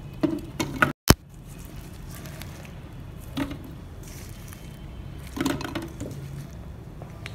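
Pitted dates dropped by hand into the plastic bowl of an electric chopper, landing with soft squishy thuds several times, with a sharp click about a second in.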